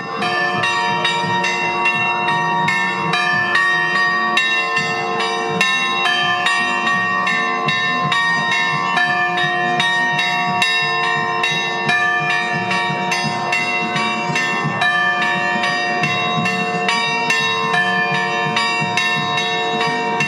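Church bells ringing, struck in quick succession at about two to three strikes a second, their tones overlapping and ringing on.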